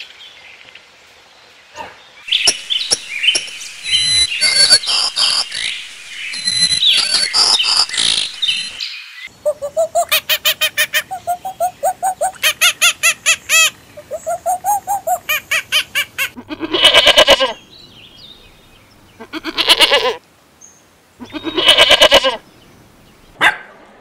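A string of different animal calls. First comes a dense run of chirping, then a fast pulsing chatter of about four pulses a second, then three loud calls a few seconds apart.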